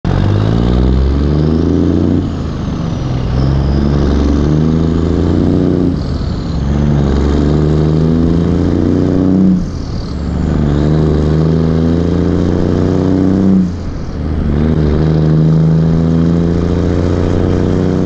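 Semi-truck diesel engine pulling away and accelerating through the gears: the engine note climbs, dips with each upshift, and climbs again, four shifts about every four seconds.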